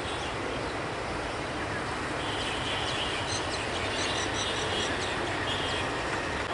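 Steady outdoor rumble of distant traffic, with a bird chirping in quick, short high notes through the middle.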